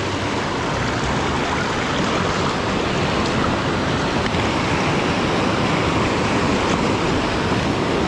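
Mountain stream rushing steadily over mossy rocks and a small cascade, an even, unbroken water noise.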